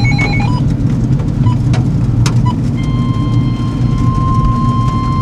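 Steady road and engine noise heard from inside a moving car. A few short electronic beeps sound in the first half second, and about three seconds in a steady high electronic tone starts and holds.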